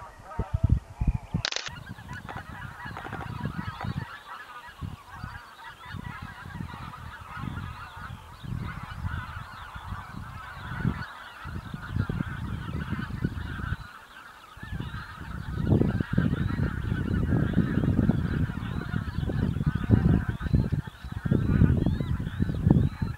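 A large flock of geese calling in flight: many overlapping honks at once, with a low rumbling noise underneath that grows louder about two-thirds of the way through.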